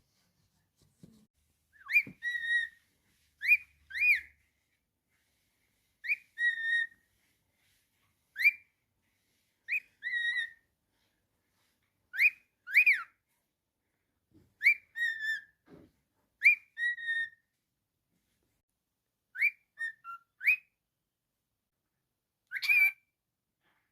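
Cockatiel whistling a short phrase over and over: a quick upward-sweeping note followed by a slightly lower held note, repeated about every two seconds.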